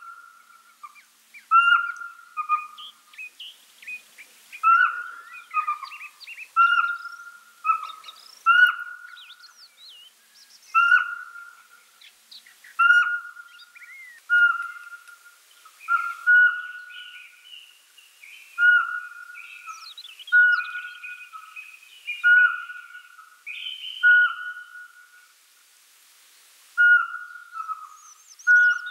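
Pygmy owl calling: a steady series of short, single-pitched whistled toots, about one every one and a half to two seconds, with fainter higher chirps between them.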